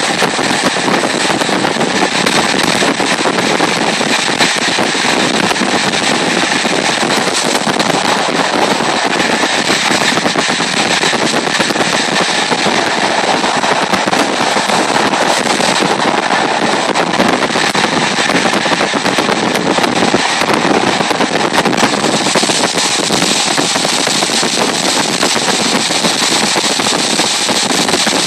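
A moving train heard from aboard: a loud, steady rushing and rumbling running noise with a dense crackle throughout.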